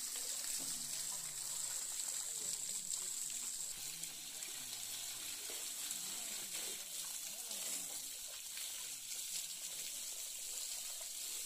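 Water spraying and splashing while a tractor is washed, a steady hiss that eases off about four seconds in. Faint voices underneath.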